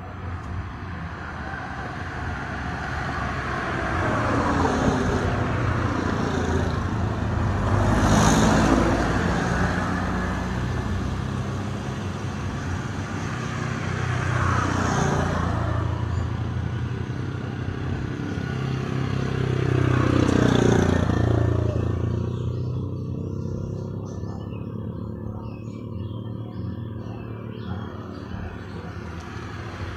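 A car and motorbikes, among them an automatic scooter, passing one after another on an asphalt road, four passes in all. Each engine's pitch drops as it goes by. The loudest pass is about eight seconds in and another about twenty seconds in, and it is quieter near the end.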